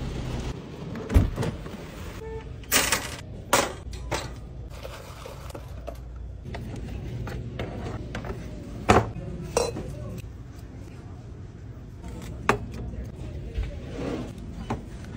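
A handful of sharp knocks and clinks at irregular intervals as goods are handled and set down on metal store shelving, over a low steady background.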